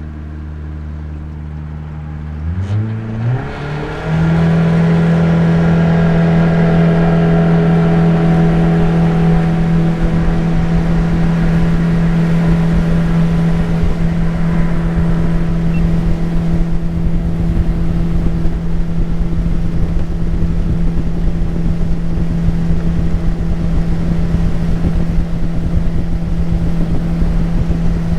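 Jet boat's outboard motor idling, then throttled up about three seconds in and running steadily at cruising speed.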